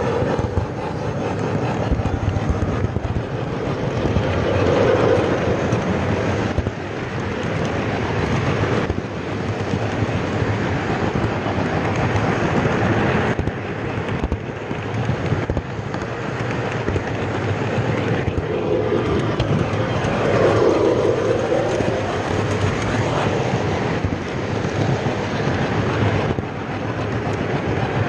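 O scale model freight train running on three-rail track, heard from on board: a steady rumble of the motor and wheels on the rails, with two brief louder swells about 5 and 20 seconds in.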